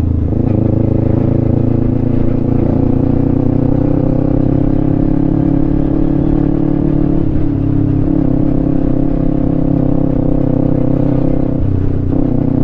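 Kawasaki Ninja 250 FI's parallel-twin engine running at a steady cruise, with wind noise over the microphone. The engine note dips briefly near the end, then picks up again.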